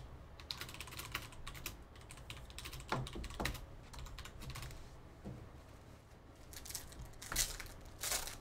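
Computer keyboard typing in quick clicks, with a couple of short falling squeaks about three seconds in. Near the end, a foil trading-card pack crinkles loudly as it is handled and opened.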